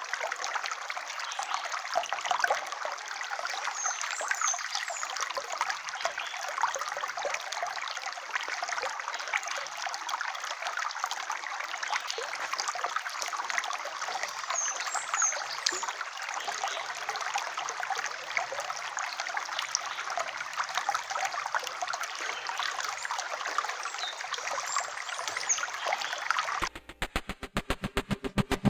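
Steady trickling and rushing of a shallow stream running over stones, with a few faint high chirps now and then. Near the end it cuts abruptly to rhythmic electronic music.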